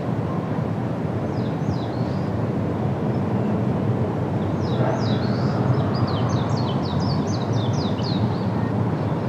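A small bird singing: a short phrase of high chirps, then a longer run of quick, falling notes about five a second. Under it a steady low rumble.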